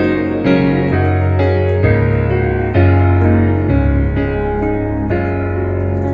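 Slow, gentle piano music: single notes and chords struck every half second to a second, each left to ring.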